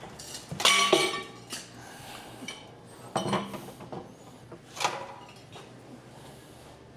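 Metal clanking and rattling as scrap water-heater parts and tools are handled, with the loudest clanks about a second in and more around three and five seconds in.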